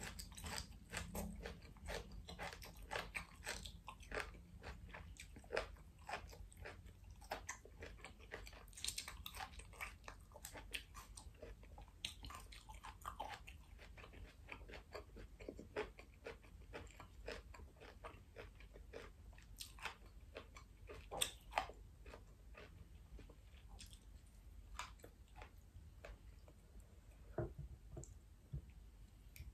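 Crisp crunching and chewing of stir-fried asparagus spears, many short snaps, dense at first and thinning out later, with a couple of louder clicks about two-thirds through.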